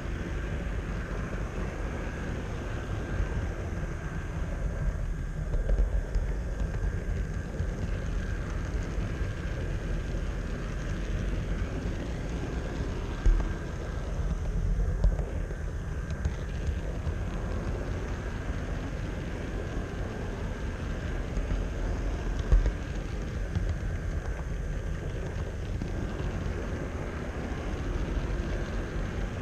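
HO-scale model train rolling along the track, heard from a camera riding on it: a steady low rumble and rattle with a faint steady whine, and two sharp clicks, about 13 seconds in and again near 23 seconds.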